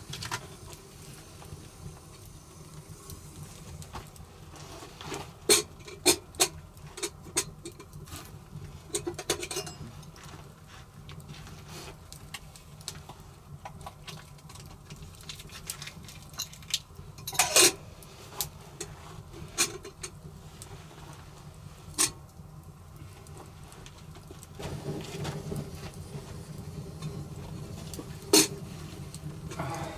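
Open wood fire crackling on a hearth, mixed with scattered sharp clicks and knocks from gear being handled and set down, a few of them louder than the rest.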